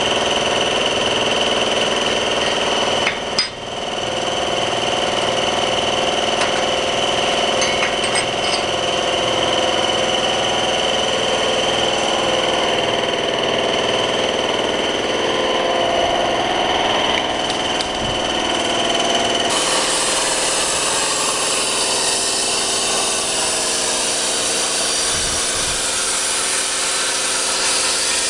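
CNC cutting machine working through 8 mm mild steel plate: a loud, continuous run of machine noise with a steady high whine, dipping briefly about three seconds in and turning into a brighter, harsher hiss about two-thirds of the way through.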